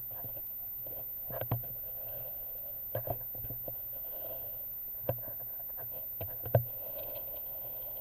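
A handful of short, light knocks and clicks spaced a second or two apart, the last one loudest: handling noise on the air rifle carrying the scope camera. A faint steady hum runs underneath.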